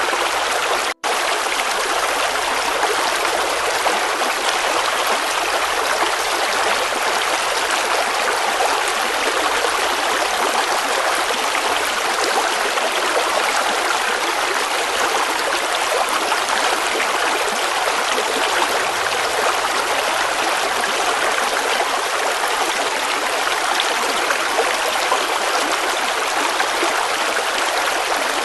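River water flowing steadily, an even rushing wash. There is a split-second dropout about a second in.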